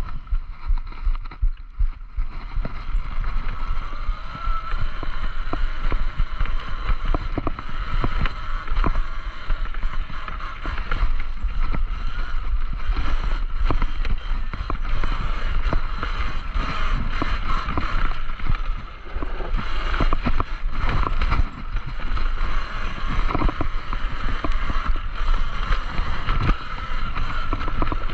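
Talaria Sting electric dirt bike ridden on a rough dirt trail: a steady whine from the electric motor and chain drive over a low wind rumble on the microphone, with frequent clicks and knocks as the bike rattles over bumps.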